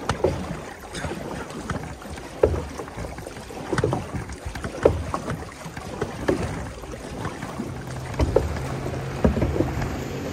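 Water lapping and splashing against the hull of a large canoe as it glides, with irregular small splashes and knocks. From about three-quarters of the way in, a low steady motorboat engine hum joins in.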